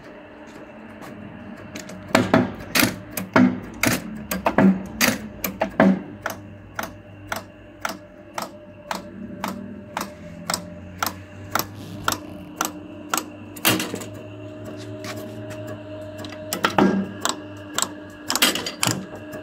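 Rijva 40-tonne mechanical eccentric press running, its motor and flywheel humming steadily. From about two seconds in, the ram strokes continuously with a sharp clank about twice a second, a little softer for a few seconds past the middle.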